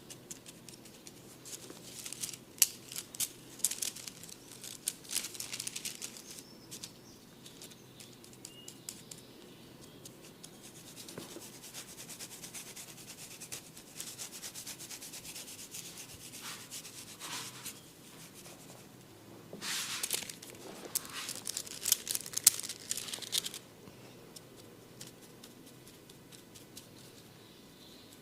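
Hair and scalp being rubbed in a head massage, close to the microphone: a crackly, rasping rustle full of small clicks, in two busy spells, one near the start and one in the second half, with softer rubbing between.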